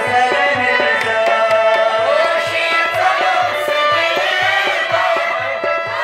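Kashmiri folk music: a plucked rabab and a hand drum keeping a steady beat of two to three strokes a second, with singing that comes in strongly about two seconds in.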